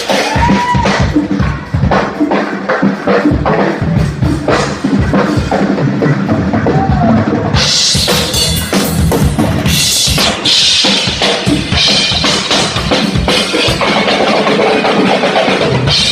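Live blues band playing a driving beat, the drum kit to the fore with bass drum and snare under electric bass; cymbals come in louder about halfway through.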